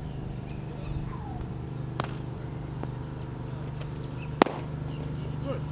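A pitched baseball smacking into a catcher's leather mitt: one sharp pop about three-quarters of the way in, over a steady low hum.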